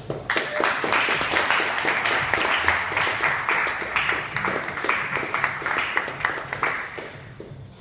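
Audience applauding, a dense patter of many hands clapping that starts just after the presentation ends and dies away near the end.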